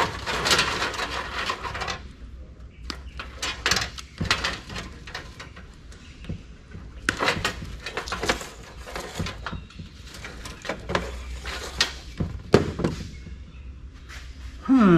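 A jammed CD-ROM drive being worked loose and pulled out of a computer tower's metal case. There is a rasping metal scrape for about the first two seconds, then scattered clicks and knocks, with one louder knock near the end.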